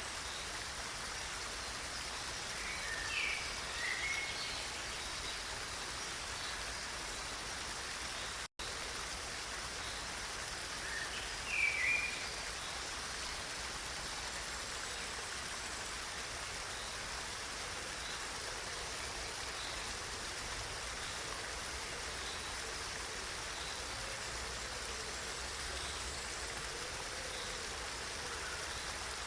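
Steady rush of flowing water, with a few short bird chirps a few seconds in and again about twelve seconds in. The sound cuts out for an instant about eight seconds in.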